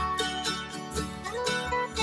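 Background music: picked acoustic strings in a country style, with quick plucked notes over a steady beat.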